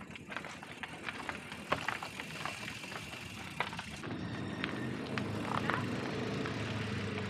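Scattered clicks and light knocks as a mountain bike is handled and walked. After a cut about a second past the halfway point, a small motorcycle engine runs steadily close by in street traffic.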